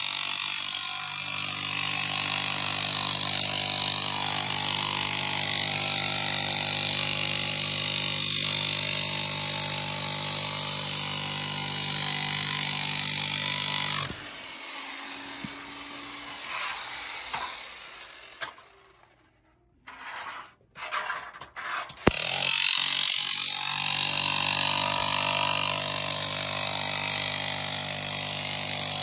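Milwaukee SDS Max chipping hammer with a floor-scraper blade running steadily as it scrapes sticky carpet glue off a concrete slab. It stops a little before the middle, leaving a few seconds of near quiet with a couple of knocks, then starts up again and runs on.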